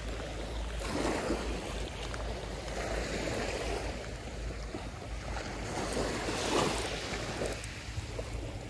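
Small sea waves washing on the shore, surging in swells every couple of seconds, with wind rumbling on the microphone.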